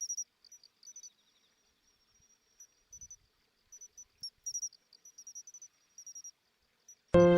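Crickets chirping in short, irregular high-pitched bursts with brief pauses between them. Near the end, instrumental music starts abruptly.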